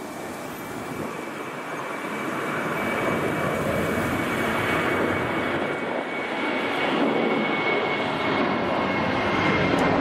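Airliner on approach to land, its engine noise growing steadily louder as it nears, with a thin steady high whine over the rush.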